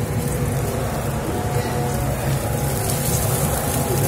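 Cooking oil poured in a thin stream into a steel pot, over a steady low roar.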